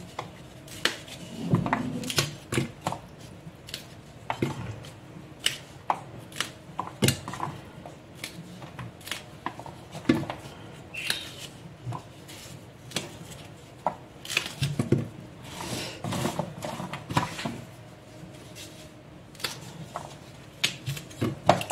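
Fresh broad bean pods being trimmed by hand with a small knife and put into a steel pot: irregular clicks, snaps and knocks, with light clinks of the knife and pods against the pot.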